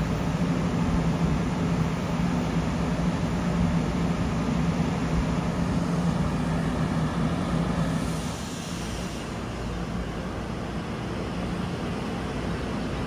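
NJ Transit commuter train of single-level coaches rolling past: steady rumble of wheels on the rails with a low hum, easing off a little about eight seconds in.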